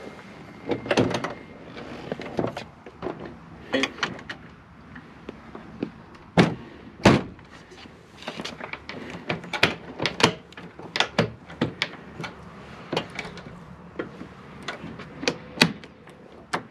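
Engine-deck cowling panel of an AS350 B2 Squirrel helicopter being closed and its latches fastened: an irregular series of sharp clicks and knocks, the two loudest about six and a half and seven seconds in.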